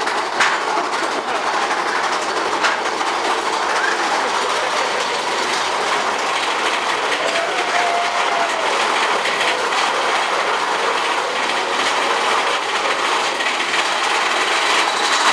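Big Thunder Mountain Railroad mine-train roller coaster running along its steel track: a loud, steady clatter of the wheels and cars, with a couple of sharp clacks near the start.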